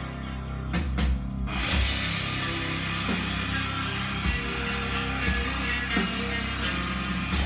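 Rock music with electric guitar and drum kit played from a vinyl record on a turntable; the guitar starts alone, and the full band with drums comes in about two seconds in.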